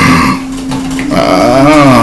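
A person's drawn-out vocal sound, its pitch rising and then falling, after a short noisy burst at the start.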